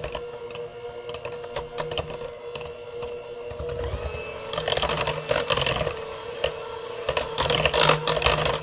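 Electric hand mixer running at a steady pitch, its beaters clicking and rattling against the bowl as they churn thick cookie batter; the clatter grows louder about halfway through.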